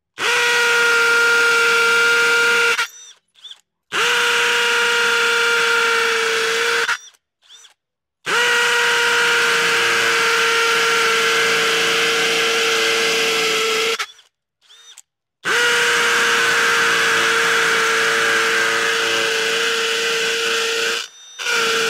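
Hercules brushless cordless hammer drill in hammer mode boring into a concrete cinder block with masonry bits: a steady high motor whine with the rattling chatter of the hammer action. It runs in four bursts of about three to six seconds, stopping briefly between holes, and starts again near the end.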